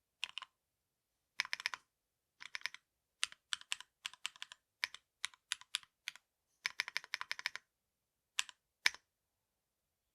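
Typing on a Fruitykeeb Menhir 40% mechanical keyboard with spring-swapped, lubed Namazu switches on a polypropylene plate and PBT keycaps. It comes as short runs of quick keystrokes with brief pauses between them, and ends with two single strokes about half a second apart.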